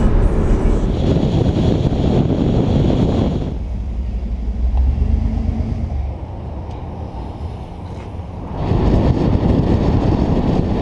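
Road noise of a moving car heard from inside the car, with a quieter stretch in the middle. The sound changes abruptly about a third of the way in and again near the end.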